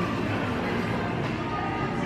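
Café background music playing over the steady noise of the room.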